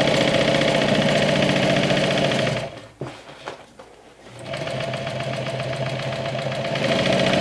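Sewing machine stitching steadily, stopping for about two seconds near the middle and then running again. It is sewing a second, reinforcing line of stitches over a seam.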